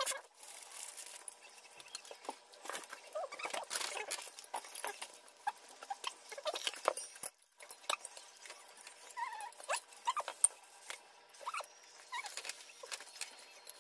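People eating tteokbokki with chopsticks: a run of small clicks and taps of wooden chopsticks against bowls and the plastic tub, mixed with chewing and slurping mouth sounds.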